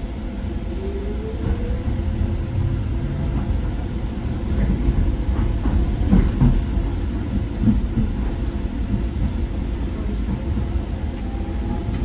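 Docklands Light Railway train running on the track, heard from inside the carriage: a steady low rumble with a rising electric motor whine in the first couple of seconds and again near the end as it picks up speed. A cluster of wheel clicks over the rails comes around the middle.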